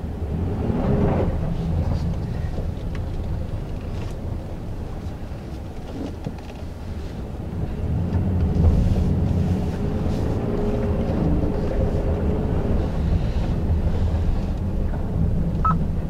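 Interior noise of a 2017 Honda Ridgeline's 3.5-litre V6 truck driving on snow-covered streets: a steady low rumble of engine and tyres, which grows louder about halfway through as the truck picks up speed.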